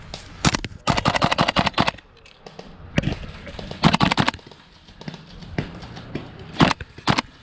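Airsoft rifle fire: a quick burst of about ten shots around one second in, another short burst about four seconds in, and a couple of single shots near the end.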